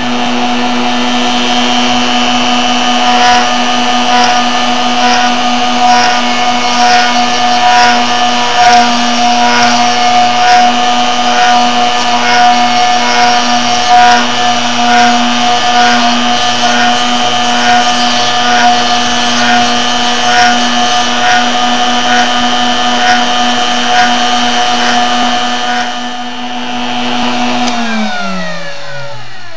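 RotoZip spinning a stack of Dremel sanding drums on a quarter-inch bolt, driven up and down by a DIY CNC machine as an improvised oscillating spindle sander, with a steady motor whine as the drums sand a hardwood clock gear between its teeth. Near the end the motor is switched off and its pitch glides down as it winds down.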